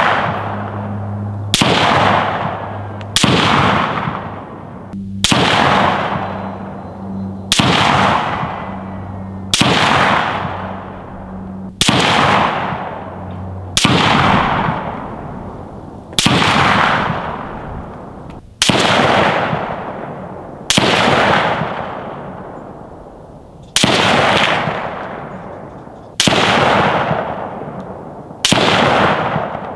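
Single rifle shots fired at a steady pace, about thirteen of them roughly two seconds apart. Each shot is followed by a long echo that fades away. A low steady hum runs under the first dozen seconds.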